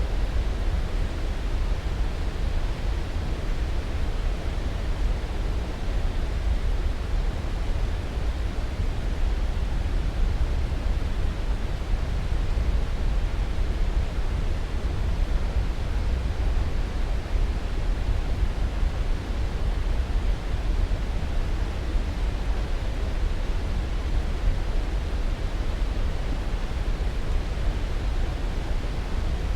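Steady sleep-aid noise: an even, deep hiss that stays the same throughout, heaviest in the low end, with no rhythm or separate events.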